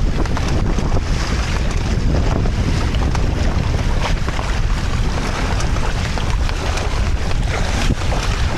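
Wind buffeting the microphone over water rushing and splashing past the hulls of a small sailing trimaran under way. It stays steady and loud throughout.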